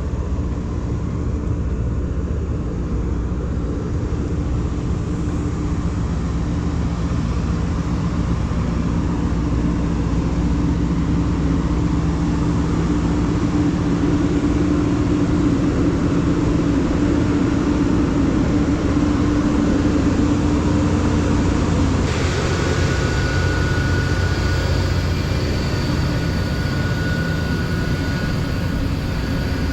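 An engine running steadily, a continuous low drone with a humming tone. About two-thirds of the way through the tone changes, and a higher whine and more hiss come in.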